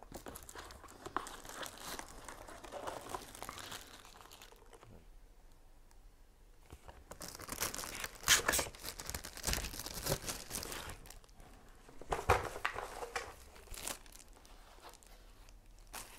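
Packaging being handled: clear plastic wrap crinkling and paper rustling in irregular bursts, loudest in two spells about eight and twelve seconds in.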